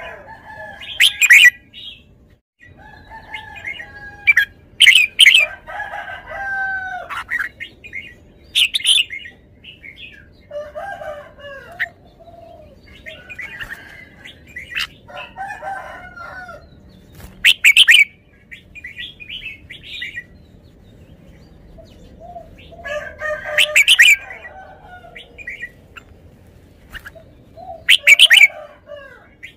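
Red-whiskered bulbul singing: short phrases of chirping, warbling notes, with a very loud sharp note every few seconds.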